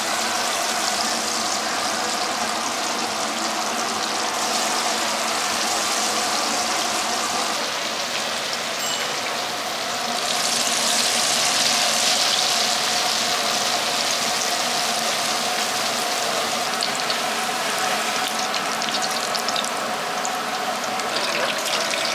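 Battered pieces deep-frying in a stainless fryer full of hot oil: a steady, dense sizzling crackle, a little louder about ten seconds in.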